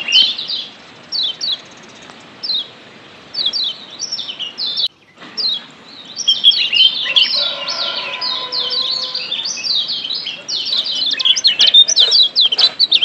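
Lombok yellow white-eye (kecial kuning) giving high, sharp, falling 'ciak' chirps in short bursts. After a brief pause about five seconds in, the chirps come in a dense, fast run.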